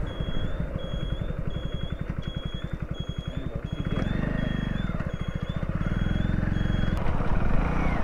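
Small motorcycle engine running at low revs with its firing pulses distinct, then pulling harder from about four seconds in. The turn-signal buzzer beeps about twice a second and stops near the end.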